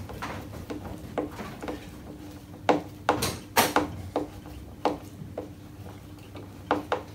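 Screw being driven by hand with a screwdriver into a wooden runner strip on an MDF board: irregular clicks and creaks as the driver turns and resets in the screw head, the loudest a handful of sharp clicks in the middle. A faint steady hum sits underneath.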